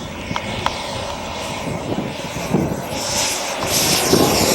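Radio-controlled scale model airplane's engine coming in to land, growing louder and sweeping in tone as it passes close.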